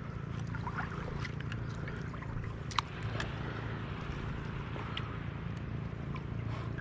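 Gentle lapping and trickling of shallow seawater over a steady low hum, with scattered small clicks and one sharper click just under three seconds in.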